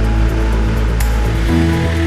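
Background music with sustained notes over a steady beat; the bass shifts to a new note about one and a half seconds in.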